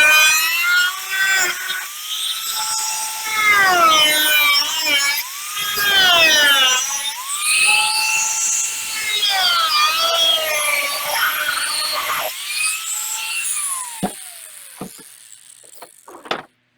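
Small high-speed power tool cutting through a plastic bumper valance, its whine sagging in pitch each time it bites into the plastic and rising again as it frees up. It winds down about 13 seconds in, followed by a few sharp clicks.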